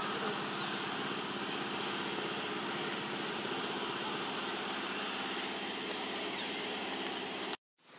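An engine running steadily with an even low hum, which cuts off suddenly near the end.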